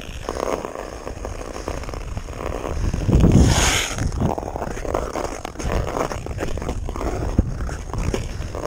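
Yamaha Kodiak 450 ATV riding across ice, heard mostly as a rough rumble of wind buffeting the microphone with engine and tyre noise under it. A louder hissing rush comes about three seconds in.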